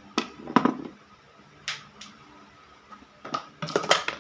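Hand tools being handled and set down on a plywood workbench, a screwdriver among them: a series of sharp clicks and knocks, with a quick cluster of them near the end.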